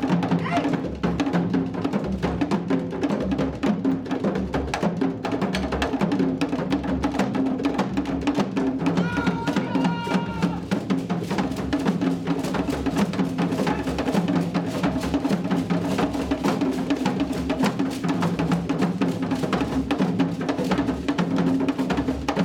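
Live drum ensemble playing a fast, dense rhythm for a dance, with steady low drum tones under many quick strokes. A brief held note sounds over the drums about nine to eleven seconds in.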